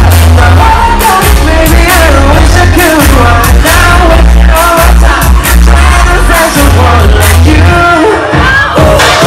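Live pop concert heard from within the audience: a singer's amplified voice over heavy bass and drums, very loud and unbroken.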